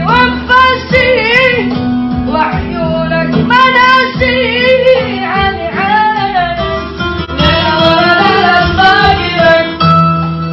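A high solo voice singing an Arabic song in ornamented, wavering phrases over a plucked-string accompaniment.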